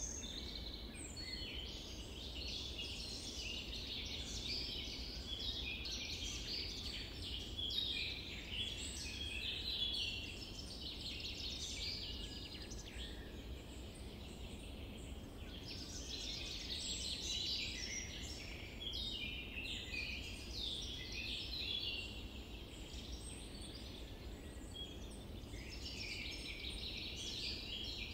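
Dense chorus of many small songbirds chirping and trilling at once, high-pitched and overlapping, with no pauses, over a faint steady low rumble.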